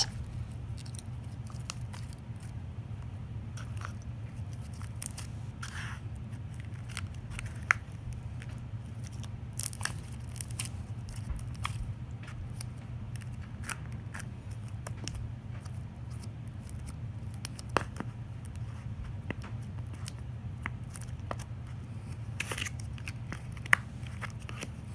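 Homemade glue slime being handled and pressed into a container, giving scattered sticky clicks and crackles over a steady low hum.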